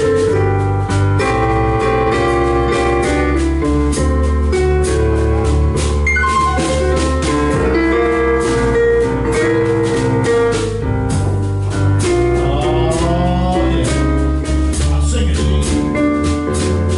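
Live blues band playing: drum kit with cymbals, electric bass and keyboard, loud and continuous.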